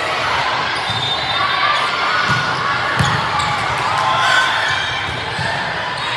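Gym ambience during a youth volleyball match: steady chatter of voices echoing in the hall, with a couple of ball hits about two and three seconds in.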